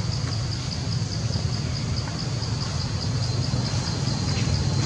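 Outdoor ambience: a steady low rumble, with an insect calling in a high, even pulse about four times a second.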